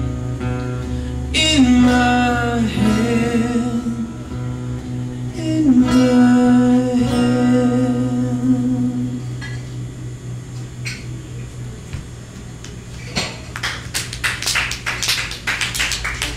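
Two acoustic guitars and a man's voice holding long wordless notes with vibrato as a song closes, the music fading out about two thirds of the way through. Near the end a small audience claps.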